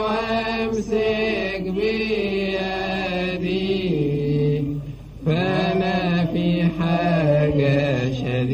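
A man chanting an Arabic Coptic Orthodox hymn in long, drawn-out notes that step slowly up and down in pitch, with a short break for breath about five seconds in.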